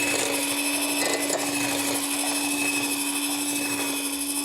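Electric mixer running steadily at speed, whisking stiff egg whites as sugar is beaten in, with a constant motor hum.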